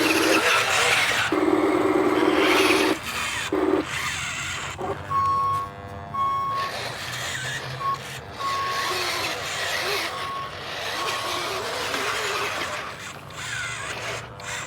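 RC construction truck's sound module: two long horn blasts and a short one in the first few seconds, then an electronic reversing beeper that beeps on and off.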